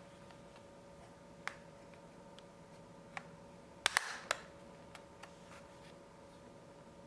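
Scattered small clicks and taps from hand tools and screws on a laptop's plastic underside, with a cluster of three sharp clicks about four seconds in, over a faint steady hum.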